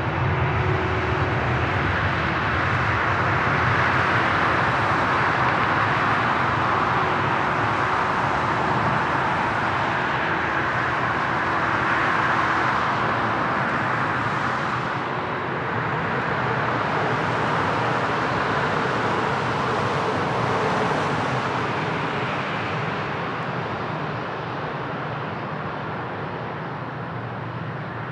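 Jet airliner's engines: a loud, steady rushing noise with a faint hum, swelling slightly twice, then fading over the last few seconds as the aircraft moves away.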